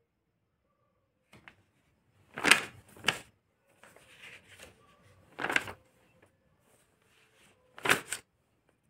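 Paper notebook pages being turned: short rustles of paper in three groups, about two and a half, five and a half and eight seconds in, with fainter rustling between.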